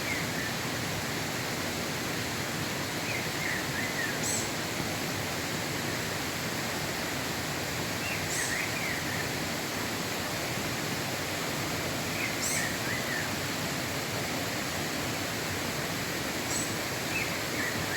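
A bico-de-pimenta (black-throated grosbeak) singing: a short phrase of a few quick notes repeated about every four seconds, each with a brief high chirp, over a steady rushing hiss.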